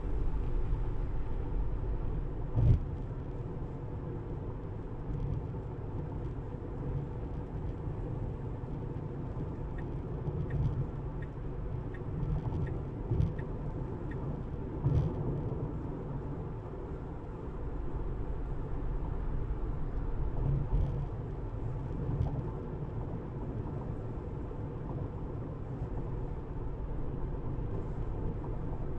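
Tyre and road noise of a Tesla electric car driving: a steady low rumble with a few short thumps along the way.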